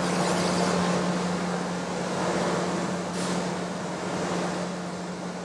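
Cylindrical (OD) grinder running: a steady motor hum under the even hiss of the spinning grinding wheel, with a brief sharper hiss about three seconds in.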